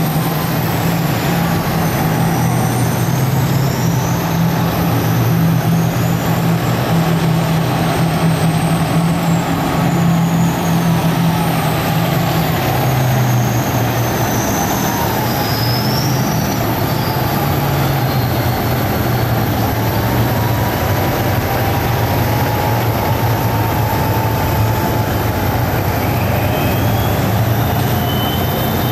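A column of tanks and armoured military vehicles driving past: heavy engines running steadily with a deep hum, and a high, thin whine that wanders up and down in pitch.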